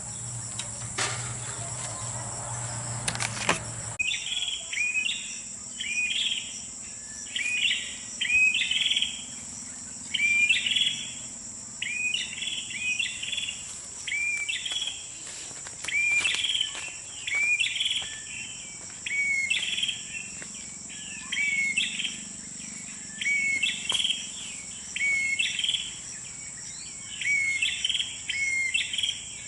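Prenjak (prinia) song repeating in short, sharp phrases of hooked notes, beginning about four seconds in, over a steady high-pitched insect drone. Before the song starts there is a low rumble with a few knocks.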